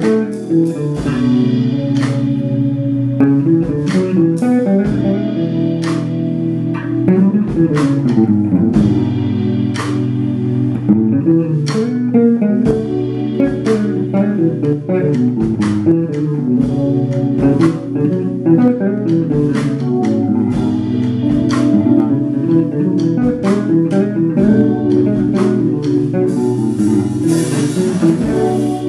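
Electric bass guitar played live, sounding several notes at once in chords and melodic runs, with sharp, clicky note attacks.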